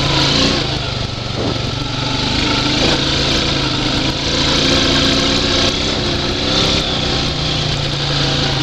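2012 Honda Rancher 420 ATV's single-cylinder four-stroke engine running steadily under way, its pitch rising and falling a little.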